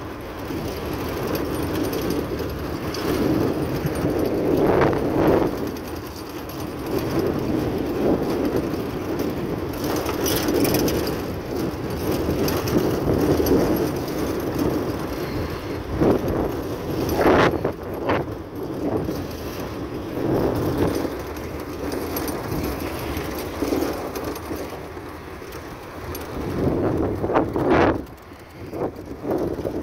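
Car driving on a gravel dirt track, heard from inside: a steady rumble of tyres on gravel, with a few sharp rattles and knocks in the middle and again near the end.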